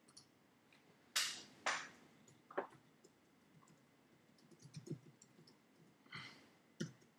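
Quiet clicks of a computer mouse, two stronger ones a little over a second in, followed by scattered lighter clicks and taps.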